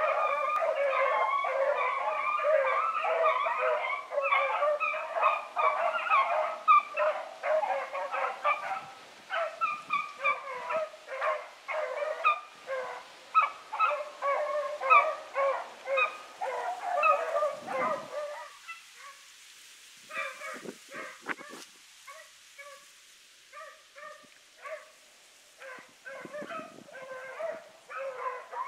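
A pack of beagles baying on a rabbit's trail, many voices overlapping in full cry. About two-thirds of the way through the chorus thins out, there is a brief lull, and then scattered single barks follow.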